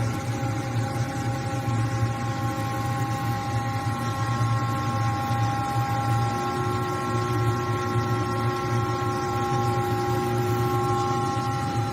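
Large MJC CNC metal-spinning lathe running, a steady low hum with several steady whining tones from its drive; another, lower whine joins about halfway through.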